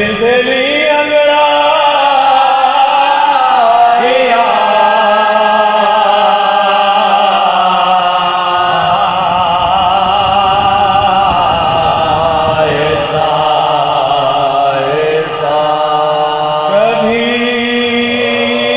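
Soz khwani: men chanting a Shia mourning elegy without instruments, the lead voice drawing out long, wavering held notes.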